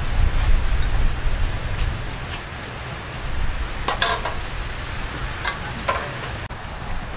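Light taps and clinks of hands and wet rice paper on a stainless steel tray and an aluminium bowl of water, a cluster about four seconds in and two more shortly after, over a steady low rumble of wind on the microphone.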